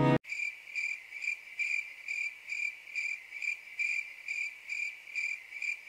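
Cricket chirping sound effect: a steady, high chirp that pulses about two to three times a second. It is the stock 'crickets' gag for an awkward silence.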